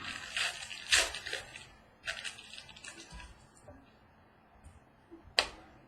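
Trading cards and pack material rustling and crackling as they are handled, with a sharp tap about a second in. Then quieter handling and one sharp click near the end.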